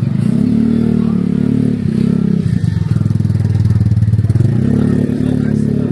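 A small engine running close by, steady and loud, its pitch shifting a little up and down.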